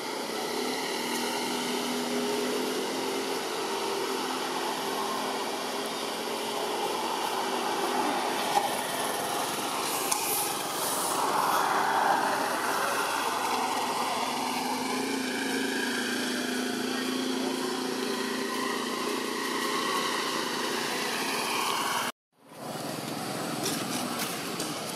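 A steady engine hum in the background, cutting out for a moment near the end.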